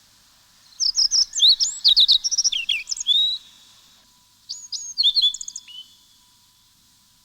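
A songbird singing two quick phrases of varied, high whistled notes that slide up and down: a longer one about a second in, then a shorter one past the middle.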